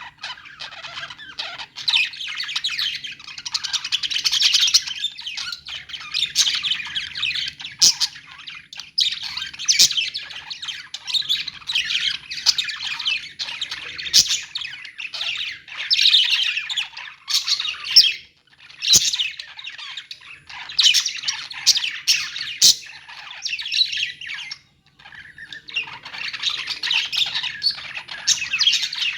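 Many small parrots, budgerigars and lovebirds, chirping and squawking together in a continuous dense chatter, with a couple of brief lulls and a few sharp clicks.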